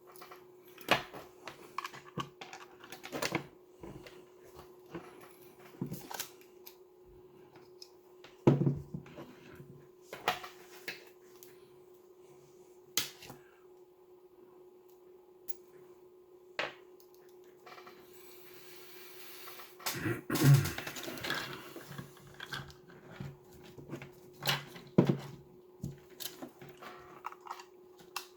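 Irregular clicks, taps and knocks of hands handling small radio test gear and cable connectors on a bench, over a faint steady hum. About 18 seconds in, a longer rustle with the loudest knock of the stretch.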